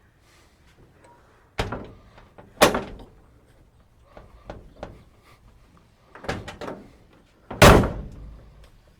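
The steel cab door of a 1963 Chevrolet C10 pickup is shut and opened again to test a newly replaced door latch: four thuds with lighter latch clicks between them, the loudest slam near the end. The new latch catches and holds the door shut.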